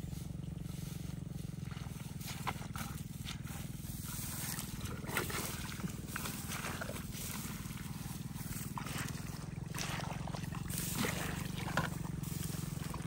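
Footsteps and rustling through long grass, over a steady low drone of unclear source.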